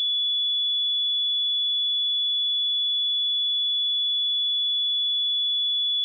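A pure 3425 Hz sine-wave test tone, one steady high-pitched note held without change.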